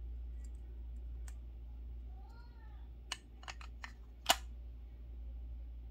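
Hand-handled plastic sixth-scale Hot Toys IG-11 figure: a quick run of sharp clicks and taps about three seconds in, the loudest a little after, as the chest parts are pressed and moved. A low steady hum sits underneath.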